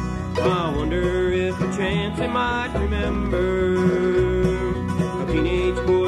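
Bluegrass band playing an instrumental break: banjo, mandolin and guitar over a steady bass line, with a lead line that slides and bends in pitch.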